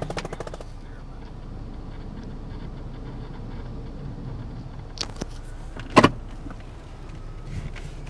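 Cabin sound of a 2014 Ford Edge with its 3.5-litre engine idling steadily. A run of quick ticks stops just after the start, a small click comes about five seconds in, and a sharp knock about six seconds in is the loudest sound.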